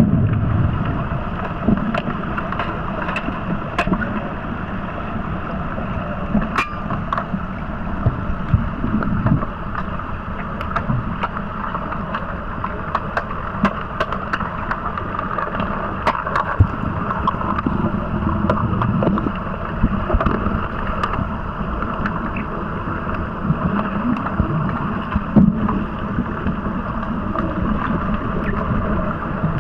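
Underwater pool sound heard through an underwater camera during an underwater hockey game: a steady muffled rushing of water and bubbles, with many sharp little clicks and knocks scattered throughout.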